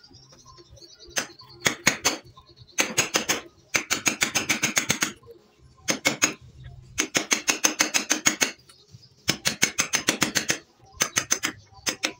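A claw hammer giving a chisel quick light taps, cutting into a hard ulin (Borneo ironwood) beam joint. The taps come in rapid runs of about eight to ten a second, each run lasting up to about a second and a half, with short pauses between runs.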